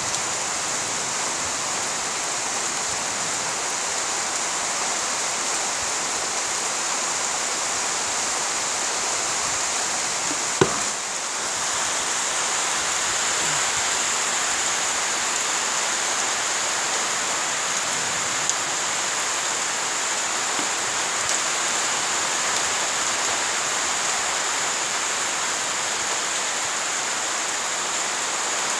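Steady rain falling on leaves and flooded ground, with one short sharp knock about ten seconds in.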